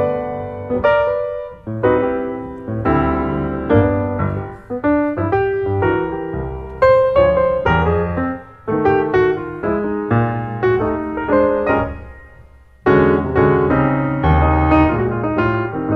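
Background piano music: chords and melody notes, each struck note fading away. The playing dies down just before twelve seconds in, then comes back strongly about a second later.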